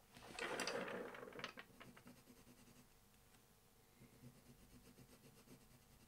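Colored pencil scratching on paper in a quick run of short, firm shading strokes, starting about half a second in and lasting about a second and a half, then fainter, sparser scratching.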